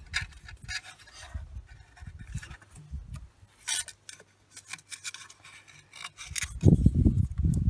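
Thick PTFE gas tape being stretched and wrapped around a rusty metal burner tube: irregular short rubbing, crinkling and scraping of tape and fingers on the metal. A louder low rumble comes in near the end.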